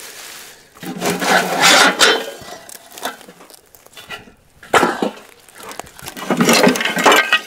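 Old glass jars and metal canning debris being picked up and handled, rattling, clinking and scraping in three bursts, with a sharp knock about halfway through.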